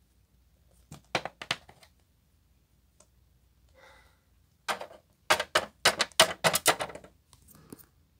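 Rapid clicks and clattering knocks of small hard objects being handled. A short cluster comes about a second in, then a dense run of quick clatter from about five to seven seconds.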